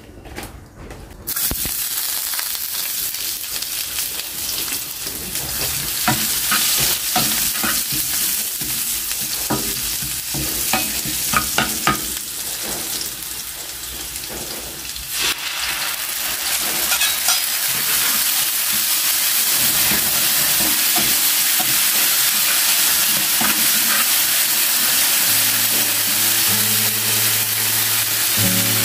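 Onion slices frying in hot oil in a pan over a wood fire. The sizzle starts suddenly about a second in, with scattered clicks and knocks of a utensil stirring through the middle, then settles into a steady sizzle.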